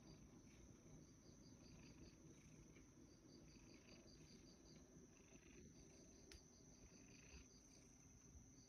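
Near silence, with faint insect chirping: short trains of rapid high pulses, about six a second, repeating over a steady high tone. There is one faint click about six seconds in.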